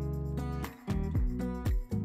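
Background music with held chords and a steady beat, about two beats a second.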